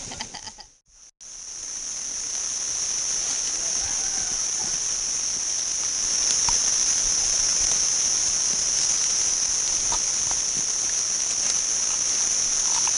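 Steady, high-pitched chorus of forest insects shrilling without a break, starting just after a brief silence about a second in, with a few faint clicks over it.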